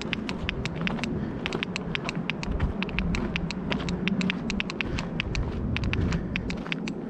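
Footsteps crunching on a dirt and gravel hiking trail: quick, irregular clicks, several a second, over a steady low rumble.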